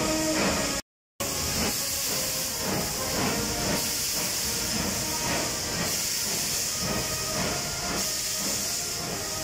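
Steam locomotive hissing loudly as it rolls slowly past, steam venting around its wheels and cylinders. The sound cuts out completely for a moment about a second in.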